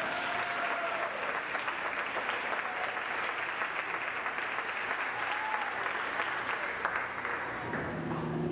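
Audience applauding with some voices calling out over the clapping; the clapping dies away near the end.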